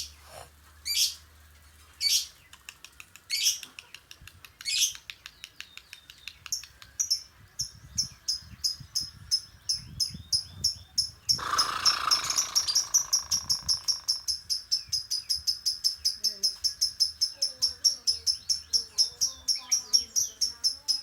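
Lovebird calling: sharp high calls about a second apart with fast ticking notes between them (the 'ngetik'), running about halfway through into 'ngekek', a long unbroken string of rapid high chattering notes, about four a second. Near the middle a louder, rougher burst lasts a couple of seconds.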